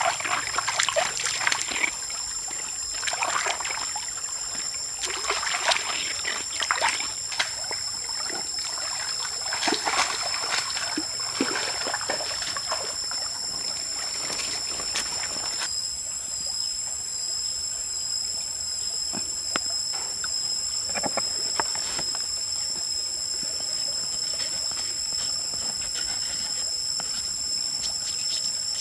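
Hands splashing and swishing in a shallow rocky stream while washing food, in irregular splashes for the first half; after that, a steadier trickle of flowing water with a few faint clicks. A steady high-pitched whine runs underneath.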